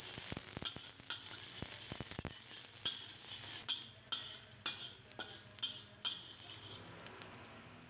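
Sliced shallots sizzling in oil in a wok, with a metal spatula scraping and knocking against the wok as they are stirred. The scrapes come in a run about twice a second through the middle of the stretch.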